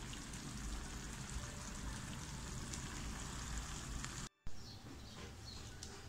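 Tomato, onion and chilli sauce sizzling steadily in a nonstick frying pan. About four seconds in, it cuts off abruptly, followed by a few faint high chirps.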